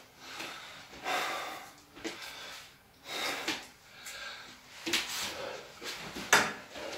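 A claymore being swung through the air: several whooshes, mixed with sharp knocks, the loudest about six seconds in.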